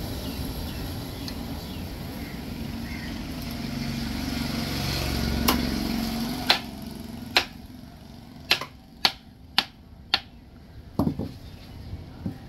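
A wooden mallet strikes the back of a knife to drive it through a large fish on a wooden chopping block: about nine sharp knocks, roughly one a second, starting about halfway through. Before the knocks, a steady rumble of passing road traffic swells and fades.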